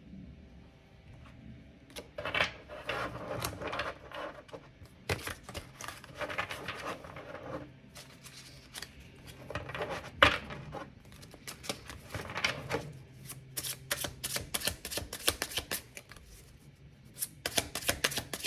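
A tarot deck being shuffled and handled: bursts of rustling card riffles, then a run of rapid clicking card flicks and taps near the end.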